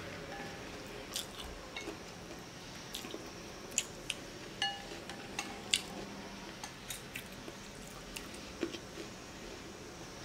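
A person chewing and eating beef pho noodles, with scattered short mouth clicks. There are occasional light taps of wooden chopsticks against a glass bowl, spaced irregularly.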